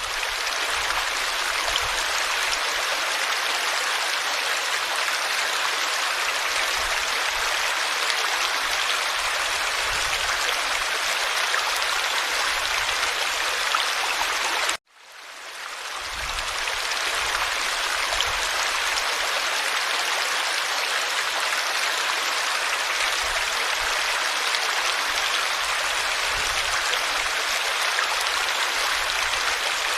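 Forest stream flowing: a steady rush and babble of water. About halfway through it cuts out abruptly and fades back in over about a second.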